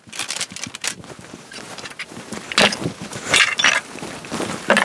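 Empty planters clinking and knocking against each other and a hard surface as they are picked up and set down, with the loudest clinks about halfway through and near the end.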